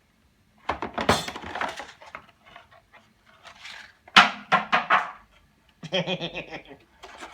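Packaging being handled: three bouts of crinkling and rustling plastic and cardboard with small knocks as parts are taken out of the box.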